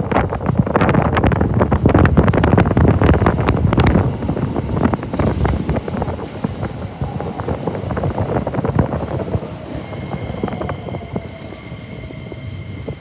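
A Keikyu 1000-series train rolling through the station, wheels clattering over rail joints, loudest for the first few seconds and then quieter as it slows. A faint falling motor tone follows, and thin steady high whines come in near the end.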